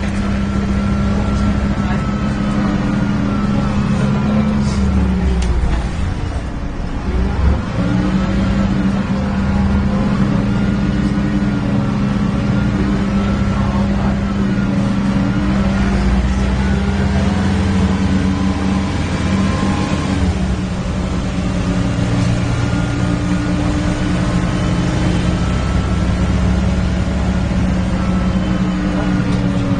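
Alexander Dennis Enviro 300 bus with a MAN diesel engine, heard while it is driven: the engine note rises and falls with the revs over a loud, steady drone from the engine cooling fan. The bus sounds poorly.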